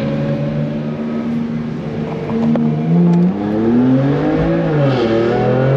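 BMW M2's turbocharged straight-six heard from inside the cabin, accelerating, its revs climbing and dropping back at gear changes about three and five seconds in.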